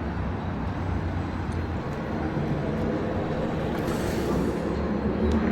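Steady low rumble of a large passing vehicle amid city background noise, with a brief hiss about four seconds in.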